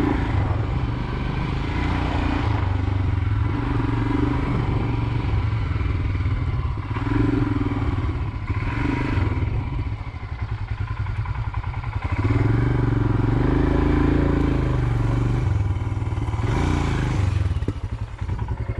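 Royal Enfield Himalayan's single-cylinder engine running at low speed over a rough dirt track, the throttle opening and closing. The engine drops to slow, separate firing pulses around ten seconds in, then picks up and gets louder about two seconds later.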